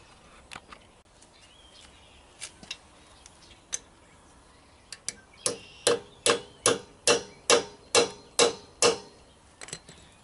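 A hammer taps a balance weight onto the rim of a semi truck's front wheel to offset a heavy side on the out-of-balance tire. A few light clicks come first. From about halfway through there is a run of about nine even metallic strikes, roughly three a second, each with a short ring.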